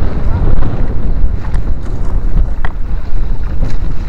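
Wind buffeting the microphone over the steady running of a small outrigger fishing boat's deck-mounted engine, under way in rough, choppy sea with water splashing along the hull.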